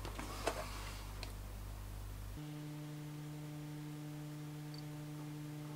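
Faint steady mains hum with a couple of small clicks in the first second or so. About two and a half seconds in, it switches abruptly to a higher, buzzier hum that holds steady to the end.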